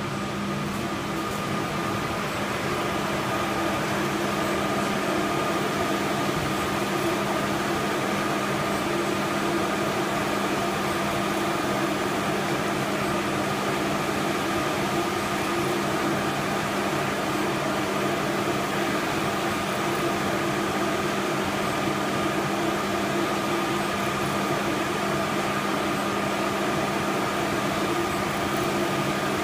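Large-format VUTEk flatbed printer running: a steady machine drone of fans and motors with a constant low hum and a higher whine held throughout.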